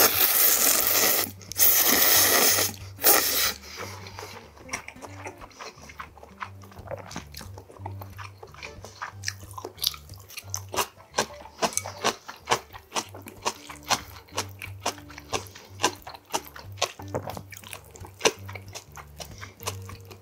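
Loud slurping of ramen noodles, three long slurps in the first few seconds, then close-miked chewing with many small wet clicks and crunches.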